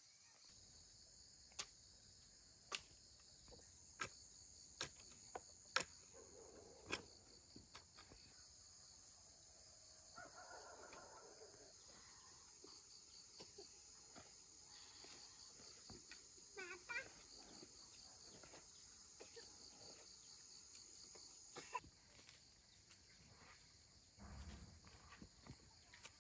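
Faint, steady high-pitched insect chorus. Sharp clicks or knocks come about once a second through the first eight seconds.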